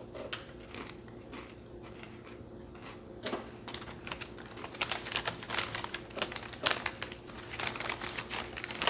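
Crunchy chocolate-dipped pretzels being chewed, with scattered sharp crunches. From about three seconds in, a plastic snack bag crinkles more and more densely as a hand reaches into it.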